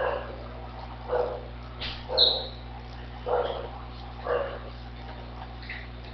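A dog barking in the background: five short barks about a second apart over a steady low hum.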